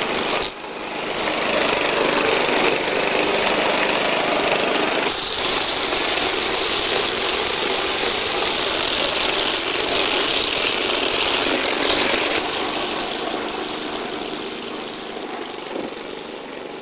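Petrol engine of a Cub Cadet wheeled string trimmer running steadily while its line cuts through weeds and grass. The sound breaks off briefly about half a second in, shifts around five seconds in, and fades gradually over the last few seconds.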